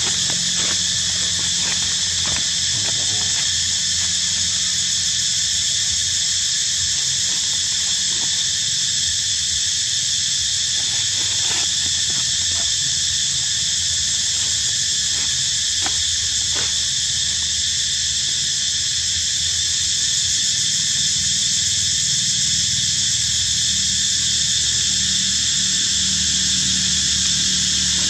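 Steady high-pitched insect drone, with a low rumble underneath and a few faint clicks.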